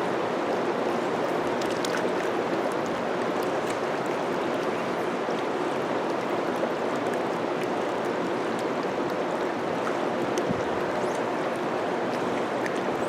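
Middle Fork of the Salmon River rushing steadily past.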